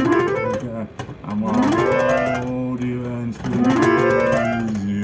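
A man singing wordless notes into a microphone, each sliding upward and then held, four times, over backing music with guitar.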